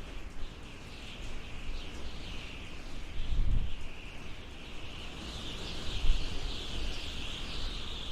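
Desert wind howling, with a thin wavering whistle that drifts up and down over low rumbling gusts that swell about three and a half seconds in and again around six seconds.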